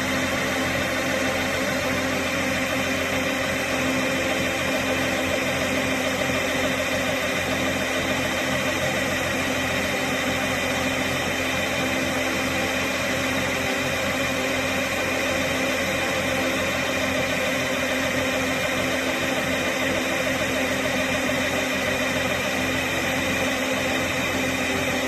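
TAMCO Pro Z3000 combine harvester running steadily: a constant, even mechanical drone with a fixed hum of engine tones that does not change in pitch or loudness.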